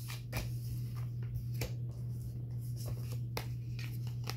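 Cards being handled on a wooden table: several short slides and sharp taps as they are moved and gathered up, over a steady low hum.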